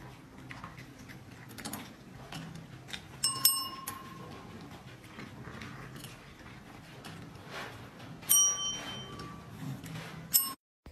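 Desk call bells tapped by kittens' paws: two clear dings, about five seconds apart, each ringing out briefly, then a third short ding near the end that cuts off suddenly.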